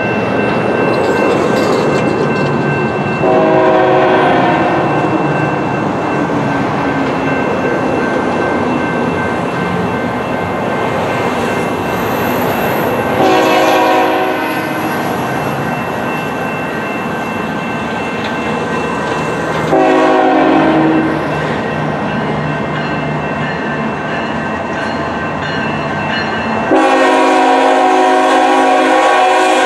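Diesel freight locomotive horn sounding four blasts as the train nears a level crossing, the last one held longest, over the steady rumble of the approaching train.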